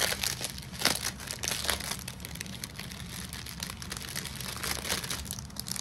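Small clear plastic bags of diamond-painting drills crinkling as they are handled, with irregular crackles throughout, loudest about a second in.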